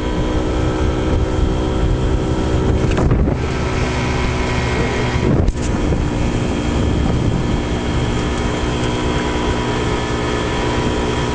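1974 Johnson 6 HP two-stroke outboard motor running steadily at cruising speed, pushing the boat along, with wind on the microphone.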